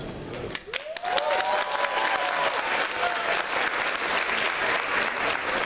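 Audience applauding, the clapping swelling in about a second in as the music ends, with one voice giving a rising cheer near the start.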